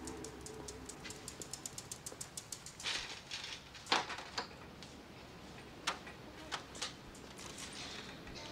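Bicycle freewheel ticking rapidly and evenly as the bike is wheeled along, then clanks and clicks of a heavy door's lock and latch being worked and the door opened, the loudest knock about four seconds in.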